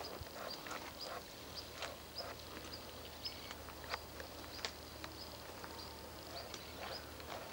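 Outdoor ambience of irregular light clicks and scuffs, with a short high chirp recurring about every half second over a low steady hum.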